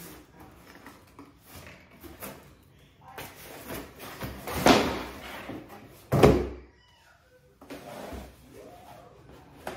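Cardboard shipping box being handled, tipped and shaken to get its contents out: rustling and scraping of cardboard, with two loud knocks about a second and a half apart near the middle.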